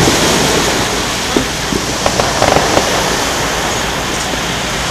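Aerial fireworks display: a shell bursts with a bang right at the start. A steady crackling hiss follows, with a few scattered pops in the middle.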